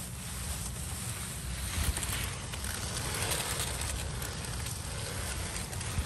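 Wind buffeting the microphone outdoors: a steady low rumble with an even hiss over it.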